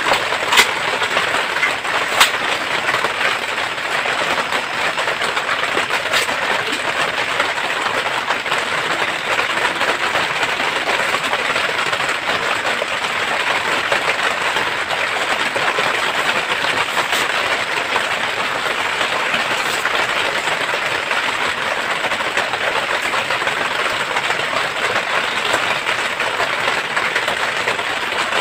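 Heavy rain falling steadily on the hut's roof, a dense even hiss. A couple of sharp clicks sound about half a second and two seconds in.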